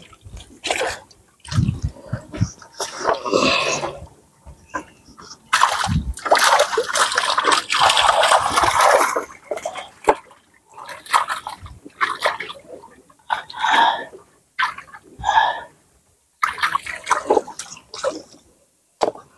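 Water splashing and dripping in irregular bursts, with a longer spell of splashing about six to nine seconds in.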